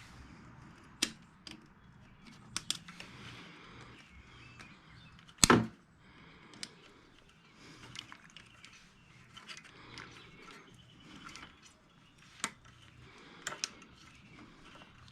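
Scattered clicks and knocks of hands working parts and tools on a small engine, with one louder knock about five and a half seconds in.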